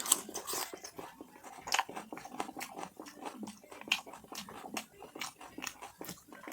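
A person chewing a mouthful of soft puri with mutton curry close to the microphone: an irregular run of mouth clicks and smacks, several a second.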